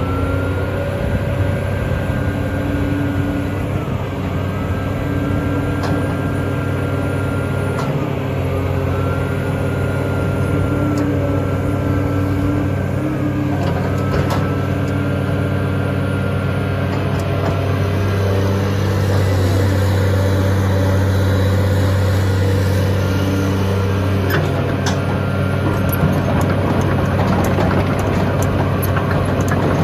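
Caterpillar 330D L excavator's C9 six-cylinder diesel running steadily as the machine works. A high hydraulic whine dips and recovers every couple of seconds, and the engine grows louder under load about two-thirds of the way through, with a few light clanks.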